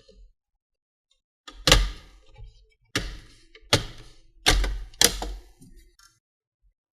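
Plastic case of a Dell Inspiron 17 7737 laptop clacking and thunking as it is handled and taken apart: about five sharp knocks over three or four seconds, with smaller clicks between them.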